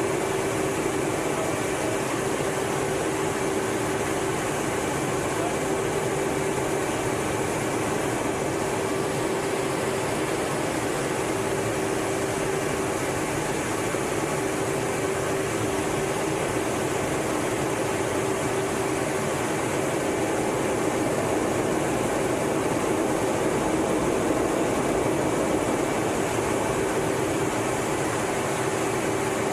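Steady cockpit noise of a twin-engine F/A-18 Hornet jet in flight: a constant rush of engine and air noise with a steady hum underneath, unchanging throughout.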